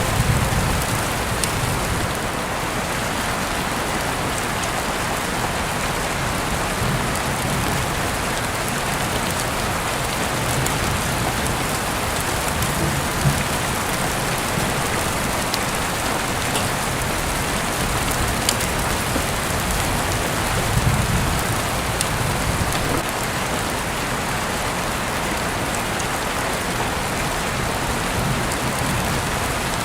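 Steady rain falling, an even hiss with a few faint sharp ticks. Soft low rumbles swell about a second in and again around 21 seconds.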